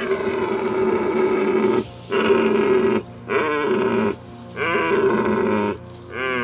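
Red deer stag roaring: a series of five long, hoarse calls, each about one to two seconds long with short breaks between them. The later calls waver in pitch.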